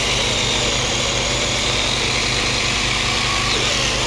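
Battery-powered 6-inch mini chainsaw running steadily as it cuts through a thicker branch, a high whirring chain noise that stops just after the end. A combustion engine idles steadily underneath.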